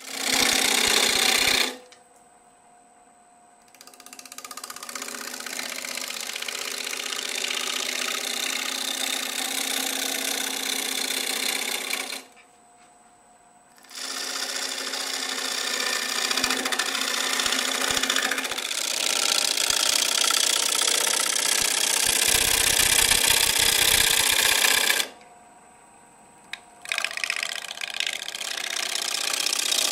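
Bowl gouge cutting into a spinning Drake elm bowl blank on a wood lathe: a steady scraping hiss of the cut in four long passes. In the short breaks between passes only the lathe motor's steady whine is left.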